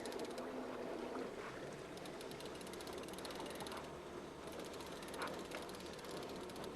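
Fishing reel ratchet clicking rapidly during the fight with a hooked king salmon, over a steady low hum.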